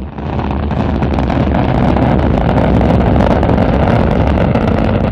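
Rocket engine thrust noise: a loud, steady rush of noise, strongest in the low range, with a brief dip right at the start.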